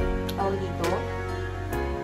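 Background music with a sustained bass line and a drum hit about once a second.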